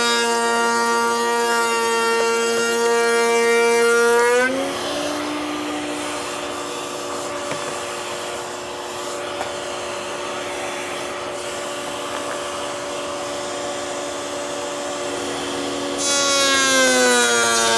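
Table-mounted router spinning a lock miter bit: a high whine that sits lower in pitch and louder while the bit is cutting through the workpiece. About four seconds in, the cut ends and the router runs free, higher and quieter. Near the end it drops in pitch again as it bogs into the next pass.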